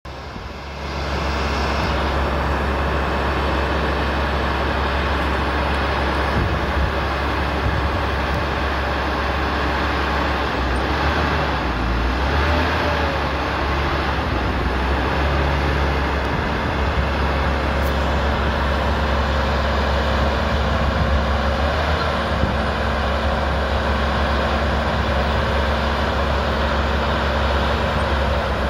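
Trans-Gesco TG475 tracked feller buncher running, its diesel engine droning steadily under a hydraulic whine that wavers in pitch as the cab tilt and boom are worked.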